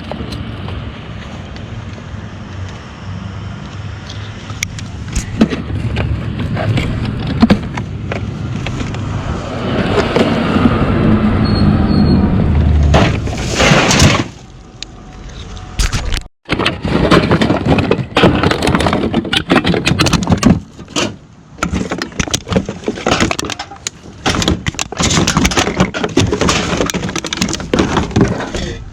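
Steady low vehicle rumble that swells for a few seconds, then, after an abrupt cut, dense irregular clattering and cracking of hard scrap items being handled.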